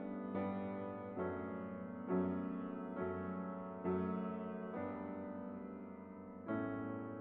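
Slow, gentle piano music: chords struck about once a second, each ringing out and fading before the next, with a longer gap near the end.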